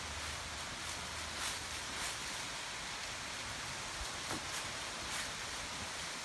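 Steady rushing of the Reidbach waterfall, with a few soft rustling footsteps on fallen leaves.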